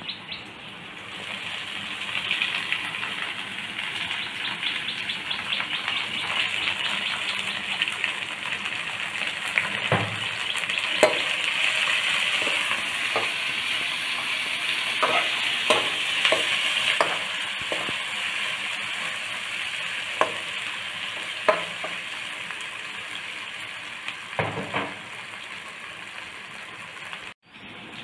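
Chopped onions and pandan leaves sizzling as they fry in hot coconut oil, a steady hiss that swells louder around the middle, with scattered clicks and knocks.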